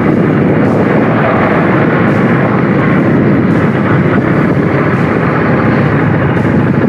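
Ducati Desert X's V-twin engine running as the bike is ridden off-road, under a loud, steady rush of riding noise.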